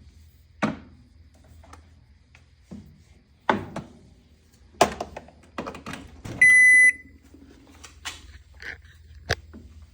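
Clicks and knocks of a microwave being handled and plugged in, then a single short electronic beep from the microwave's control panel about six and a half seconds in, the loudest sound. The beep shows the oven has power again now that its blown 20-amp fuse has been replaced.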